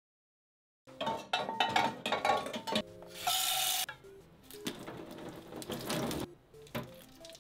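After about a second of silence, light kitchen clatter and a brief loud rush, then water poured from a small saucepan onto the soil of a potted plant, over quiet background music with short stepped notes.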